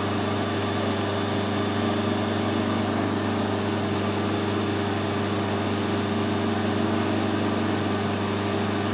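Steady hum of running workshop machinery: a low drone with a few higher tones above it, unchanging throughout.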